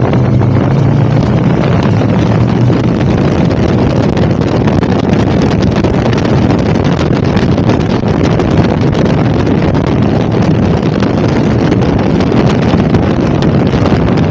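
Heavy wind rushing over the microphone of a KTM 1290 Super Adventure ridden at steady road speed, with the engine's low drone underneath, clearest near the start.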